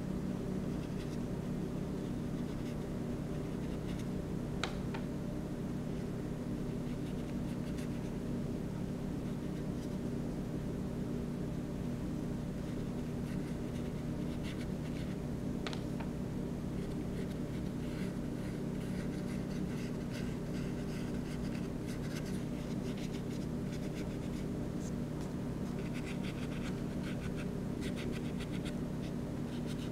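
Paintbrush stroking across paper, a run of short, irregular scratchy strokes that come thicker in the second half, over a steady low hum.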